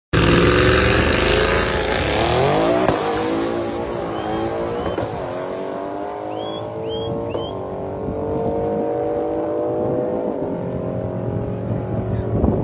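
Audi RS6 C7's twin-turbo V8 launching hard off the line and accelerating away, the engine pitch climbing and dropping back at each upshift a few seconds apart and fading as the car pulls away.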